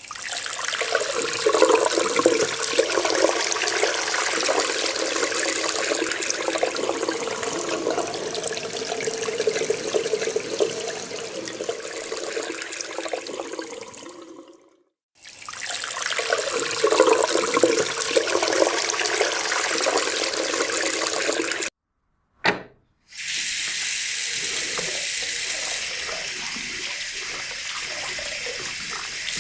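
Water running from a tap. The stream fades out after about 14 seconds, pauses briefly, and starts again. It then cuts off abruptly, and after a short burst a steadier, brighter stream of tap water runs on.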